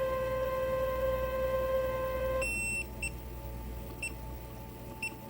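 Lathe drive running with a steady high whine that stops about two and a half seconds in. The lathe's electronic controller then gives one longer beep, followed by short beeps about once a second.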